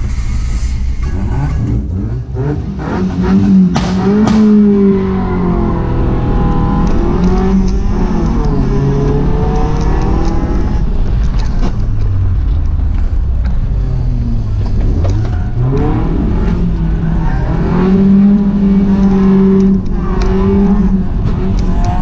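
Toyota Corolla's stock 4A-FE 1.6-litre four-cylinder engine, heard from inside the cabin. It pulls away from the start about two seconds in, then revs up and down repeatedly through gear changes, hard acceleration and lifts.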